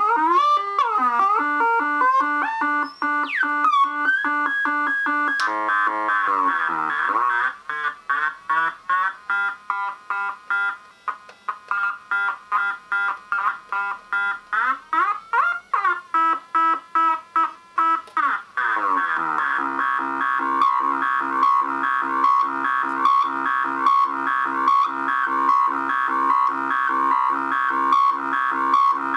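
Home-built analogue Weird Sound Generator synthesizer making buzzy electronic tones. The pitch steps and swoops up and down, then the sound is chopped into rapid on-off pulses for about ten seconds, about two a second. It ends in a steady buzzing drone.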